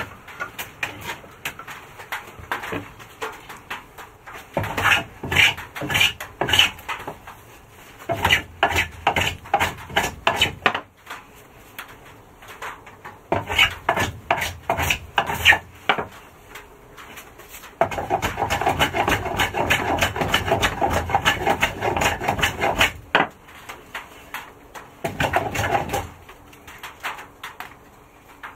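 Hand tool shaving down the edge of a wooden mantel beam in quick, short scraping strokes, coming in bursts with pauses between, the longest run about two-thirds of the way through.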